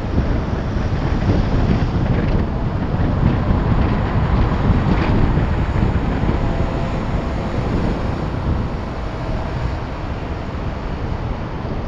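Wind buffeting the microphone of an action camera mounted on the outside of a moving vehicle, over a steady rush of road and engine noise.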